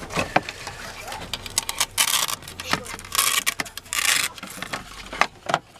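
Plastic steering-column shroud being pulled off by hand: scattered clicks and knocks of the trim, with two rasping tears of the hook-and-loop fastener holding it, the second one longer.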